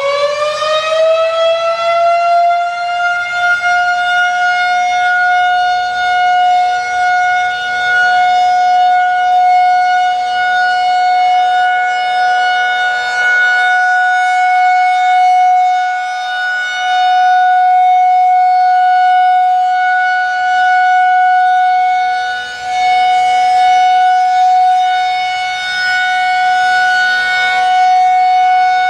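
Federal Signal 2001-130 rotating electromechanical warning siren sounding its steady Alert tone in a scheduled test. It finishes winding up to pitch about a second in, then holds one steady pitch. Its loudness swells and fades every few seconds as the head rotates.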